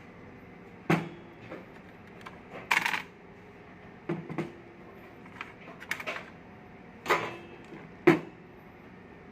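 Hard knocks and clatters as a battery is worked out of a UPS unit's casing: about six separate knocks, with a short rattling scrape about three seconds in and the loudest knock near the end.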